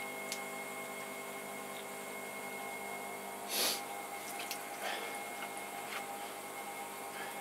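Electric pottery wheel running with a steady motor hum and a thin whine while wet hands squeeze and slide clay into a cone on the spinning wheelhead, giving wet squelching and slapping. The loudest is a short wet swish about three and a half seconds in, with smaller ones at roughly one-second intervals after it.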